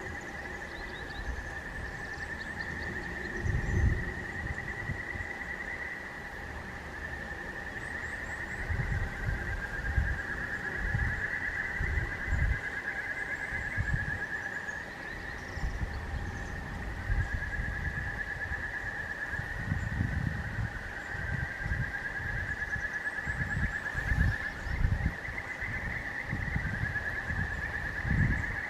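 Outdoor ambience: wind gusting on the microphone over a continuous high-pitched drone, with a few faint high chirps.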